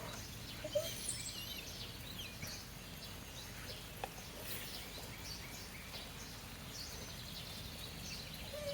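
Faint birds chirping over a steady hiss of rain, with a brief soft dog whine about a second in.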